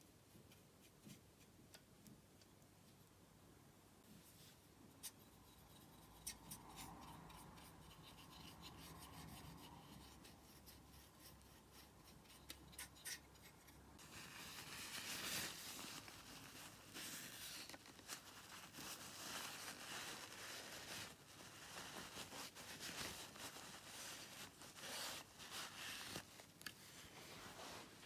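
Scraping and rubbing against the paint pans of a vintage tin watercolour box: a few small clicks at first, then from about halfway a close, uneven scratching that comes and goes.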